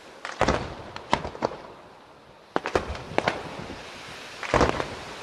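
Fireworks display: a rapid series of sharp bangs from bursting shells, with a brief lull about two seconds in and a loud cluster of bangs near the end.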